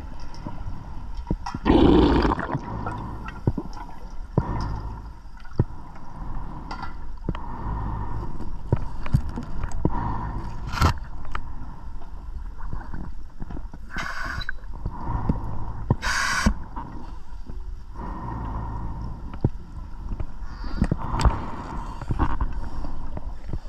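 Underwater sound of a scuba diver breathing through a regulator: recurring gurgling rushes of exhaled bubbles, two sharper hisses of inhalation, and scattered small clicks and knocks.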